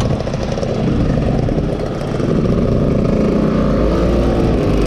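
Yamaha F1ZR's two-stroke single-cylinder engine running on a moving motorcycle, getting louder about a second in.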